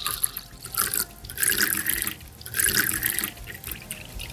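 Stock sound effect of water pouring into a cup, a splashing stream that comes in uneven surges.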